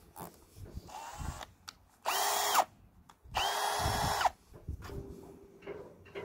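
Cordless drill run in two short bursts, about a second apart, its motor whine spinning up and winding down each time. Light knocks and clicks of handling come between them.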